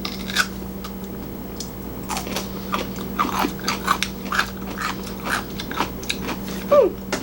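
Close-up chewing of crunchy young-radish (ponytail) kimchi, a series of short wet crunches and crackles. A brief falling squeak near the end is the loudest moment.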